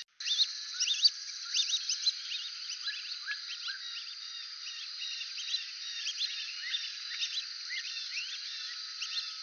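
Brazilian teal (ananaí) calling: many short, high rising whistles overlapping one another, as from several birds, over a steady high hiss. The sound cuts out for an instant at the very start.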